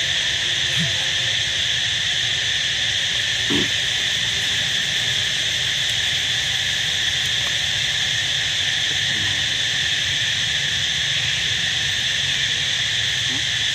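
Steady chorus of insects, a continuous high-pitched drone that holds at one level throughout.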